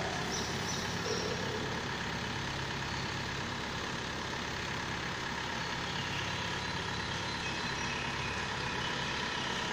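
Engine of a truck-mounted mobile crane running steadily at a constant pitch while it holds a load.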